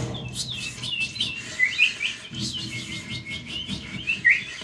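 Rapid bird-like chirps and tweets, many short rising calls one after another: a cartoon bird sound effect for a hypnotised man who has been turned into a bird.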